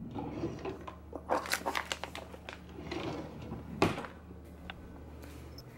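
A kitchen drawer pulled open, then a plastic bag of cat treats rustling and crinkling as it is handled, with a sharp click about four seconds in. A low steady hum runs underneath and stops near the end.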